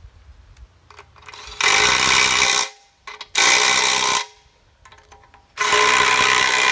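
A power tool running in three bursts, the last and longest about two seconds, driving home the bolts on the excavator bucket.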